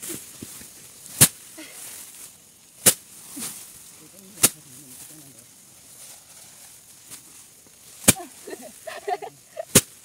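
Sheaves of cut rice being struck against a hard surface to thresh out the grain: five sharp whacks about one and a half seconds apart, with a longer gap midway and softer rustling knocks just before the last.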